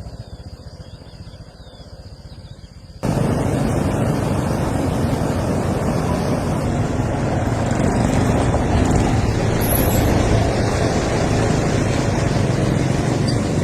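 Motor vehicle running on the road: a steady low engine rumble under loud road and wind noise that comes in abruptly about three seconds in, after a quieter stretch.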